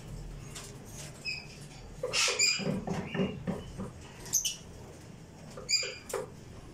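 Caged small parrots giving short, sharp high chirps and squeaks, several separate calls, with some rustling in the cages in between.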